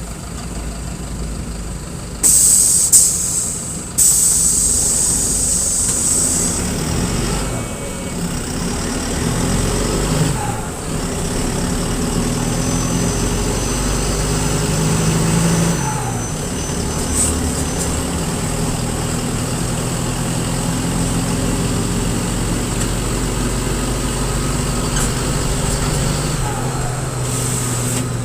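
Mercedes-Benz OF-1721 bus diesel engine running and pulling through the gears, its pitch climbing and dropping several times, with the rough note of a holed exhaust. A loud burst of air hiss from the brakes comes about two to four seconds in.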